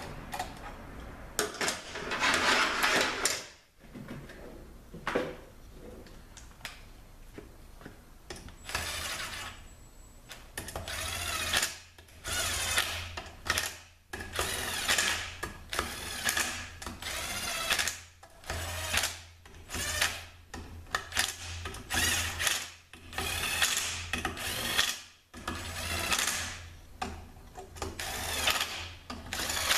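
Cordless power driver spinning in short runs of a second or two, one after another through the second half, running down the bolts that hold the valve body to the transmission.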